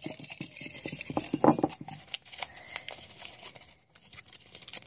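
Duct tape being handled and folded, crinkling and rustling, with irregular small clicks and taps.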